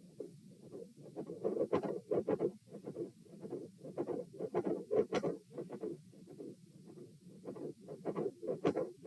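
Heart sounds picked up by a stethoscope on the chest, mixed with many short, irregular clicks and crackles from the chest piece, coming in louder clusters.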